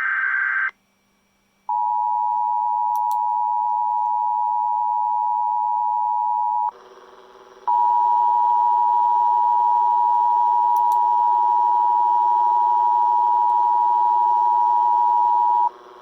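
Emergency Alert System broadcast: the last moment of a raspy data burst, then the EAS two-tone attention signal, two steady pitches sounded together. It holds for about five seconds, breaks for about a second, then sounds again for about eight seconds.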